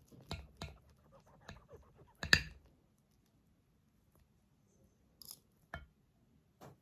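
Knife and fork cutting through a bacon-wrapped minced-meat skewer on a plate: a run of soft crunches and scrapes, with one sharper click about two seconds in, then a few faint clicks.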